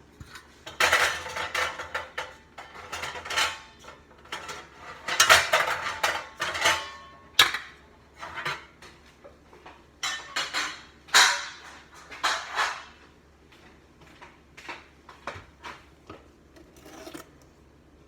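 Metal baking pans and utensils clattering and scraping: clusters of knocks and scrapes, loudest in the first half, thinning out toward the end.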